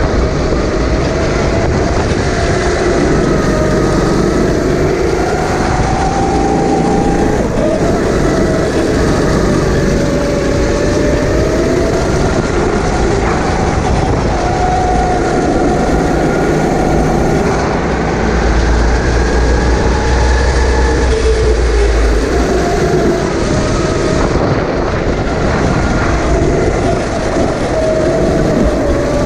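Sodi kart's engine running hard, heard from the driver's seat. Its pitch rises under acceleration and drops when the driver lifts for corners, every few seconds. A heavy low rumble joins it for a few seconds just past the middle.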